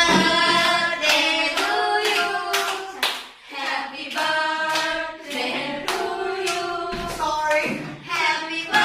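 Group of voices singing a song with steady rhythmic hand claps, about two claps a second.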